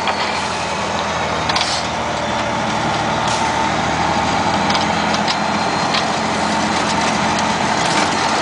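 Semi truck's diesel engine running steadily, heard from inside the cab as it drives a rough, rutted haul road, with a few short knocks and rattles along the way.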